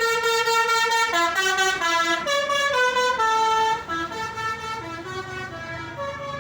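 Indonesian bus 'telolet' horn, a multi-tone horn playing a tune: one note held for about a second, then a quick run of stepping notes. It gets quieter about four seconds in, and a low hum comes in underneath.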